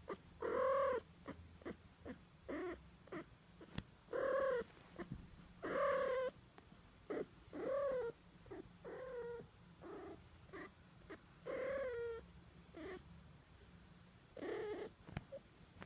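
Cat meowing over and over, a long run of meows that rise and fall in pitch, some drawn out and some clipped short, with a low steady rumble underneath.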